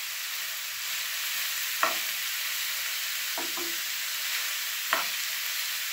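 Rice and vegetables frying in a pan while a spatula stirs them: a steady sizzling hiss, with three short knocks of the spatula against the pan about a second and a half apart.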